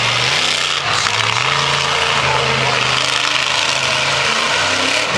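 Monster truck engine running, its pitch dipping and then rising a little, over a steady noisy roar.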